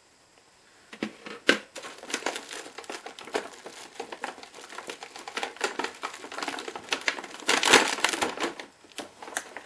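Plastic packaging crinkling and crackling as it is handled, with sharp clicks, starting about a second in and loudest a little past the middle.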